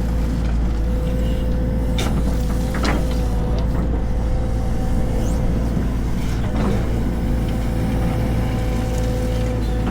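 Heavy diesel machinery running steadily with a constant low rumble and a steady whine. A few short, sharp sounds come about 2, 3 and 6.5 seconds in.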